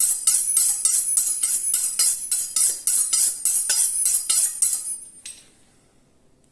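A short piece of music with a bright jingling percussion beat, about three strikes a second. It stops about five seconds in and leaves a brief ringing fade.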